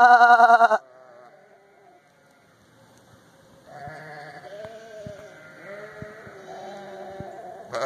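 Sheep bleating as a flock approaches: a loud held call ends in the first second, and after a short lull several fainter bleats overlap from about the middle on, with a few soft knocks among them.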